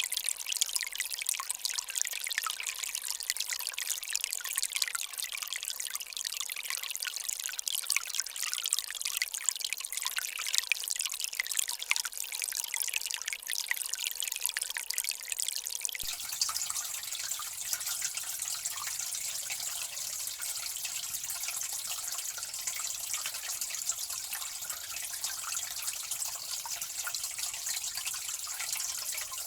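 Water trickling and dripping unevenly, then about halfway through an abrupt switch to water running in a steadier stream.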